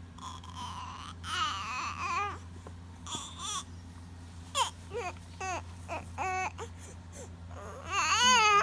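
Baby vocalising: high-pitched, wavering squeals with short coos and calls in between, the loudest squeal near the end.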